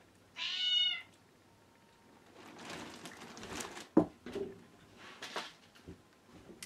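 A cat meows once, about half a second in. Then come rustling and handling noises, with one sharp knock about four seconds in.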